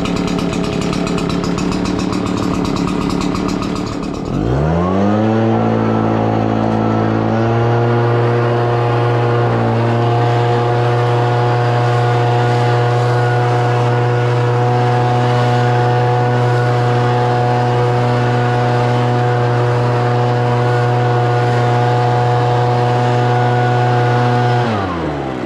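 Redmax EBZ7500 backpack leaf blower's two-stroke engine running. It idles for about four seconds, then is throttled up to full speed and held steady. It drops back to idle near the end.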